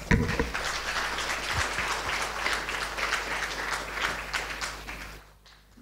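Audience applauding, a dense steady clapping that stops abruptly about five seconds in.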